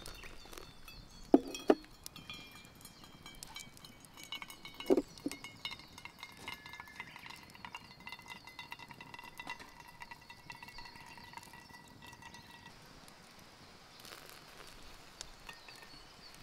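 Hand-drip coffee: hot water poured from a kettle into a paper filter of grounds over a metal camp cup, with sharp metal clinks a little over a second in, again just after, and about five seconds in, and thin ringing tones for several seconds after.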